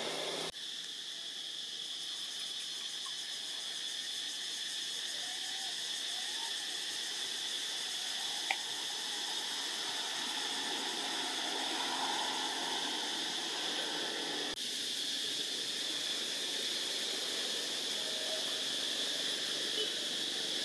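Insects in the forest droning steadily at a high pitch, with a few faint short calls here and there and one sharp click about eight seconds in.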